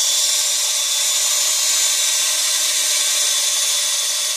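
DeWalt XRP cordless drill running steadily with a step bit, boring out the hole in a plastic bottle cap held in the hand.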